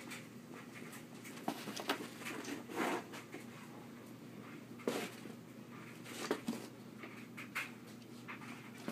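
A dog scrambling after a laser dot on carpet: irregular thumps and scuffs of its paws as it pounces and turns.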